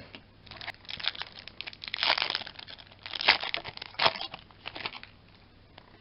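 The foil wrapper of a Yu-Gi-Oh! booster pack being torn open and crinkled, with louder crackles about two, three and four seconds in.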